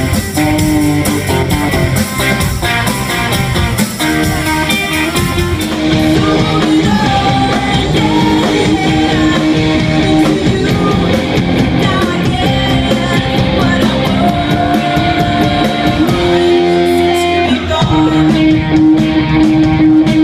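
Live rock band playing: electric guitars, bass guitar and a drum kit, with a young woman singing and holding long notes over them.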